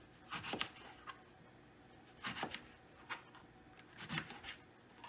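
Chef's knife slicing an eggplant into rounds on a thin plastic cutting mat: several short cutting strokes, roughly one a second, each ending on the board.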